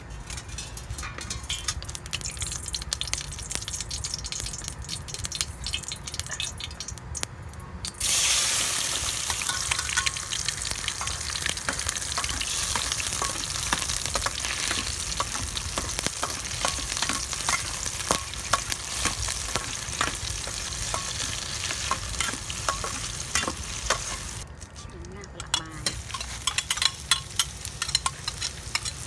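Yellow paste frying in hot oil in a stainless steel pot: the sizzle starts suddenly about a quarter of the way in and carries on steadily, with a metal spatula scraping and clinking against the pot as it is stirred. Near the end the sizzle drops away and metal clinks and scrapes take over as more ingredients are scraped in from a bowl.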